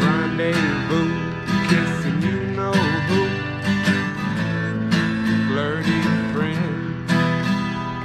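Twelve-string Mitchell acoustic guitar strummed in a steady rhythm, its chords ringing.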